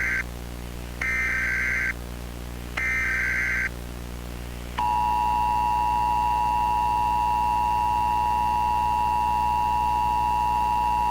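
Emergency Alert System tones for a tornado warning: the end of the first SAME header data burst, then two more bursts about a second long each, evenly spaced. About five seconds in, the steady two-tone attention signal starts and holds.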